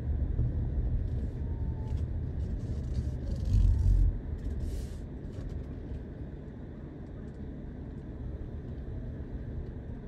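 Low rumble of a car's engine and tyres heard from inside the cabin as the car rolls slowly forward, with a brief louder low thump about three and a half seconds in and faint rustling in the first half. After about four seconds the rumble is quieter and steady.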